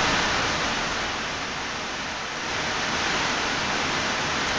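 Hard, driving rain falling steadily, an even hiss like static.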